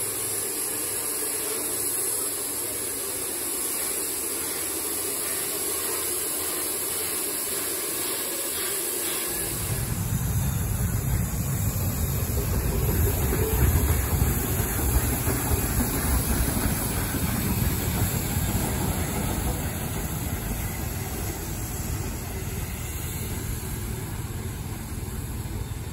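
Small steam tank locomotive standing with steam hissing steadily. About nine seconds in, a steady low rumble joins the hiss.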